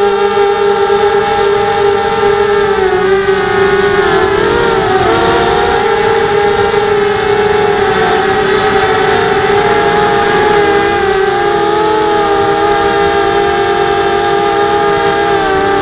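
SunnySky brushless motors and propellers of a CGX 250 racing quadcopter whining steadily: several close pitches waver together as the throttle changes, dipping briefly about four seconds in and again around ten to eleven seconds.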